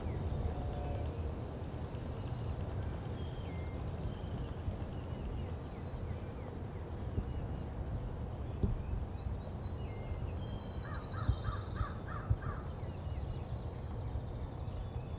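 Spring field ambience: scattered songbird notes over a steady low rumble. About eleven seconds in, a bird gives a quick run of six harsh calls.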